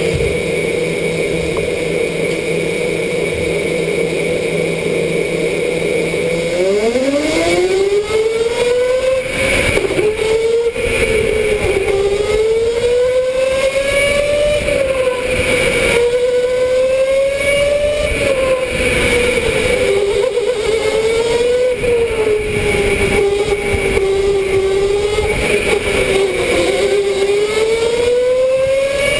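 Electric go-kart motor whine heard from the driver's seat: a steady hum while the kart waits, then about six seconds in the whine sweeps up in pitch as it pulls away, and keeps rising and falling with speed for the rest of the run.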